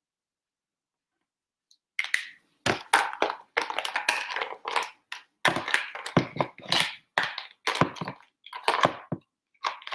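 Silence, then from about two seconds in a dense, irregular run of rustling and clattering: plastic marker pens being picked through and handled close to the microphone.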